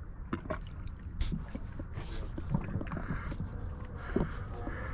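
Water splashing and trickling against a steady low rumble, with scattered small clicks and ticks.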